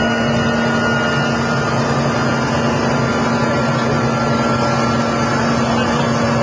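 Mil Mi-8 helicopter's twin turboshaft engines and main rotor running steadily, heard from inside the cabin as a loud, even drone with a constant hum.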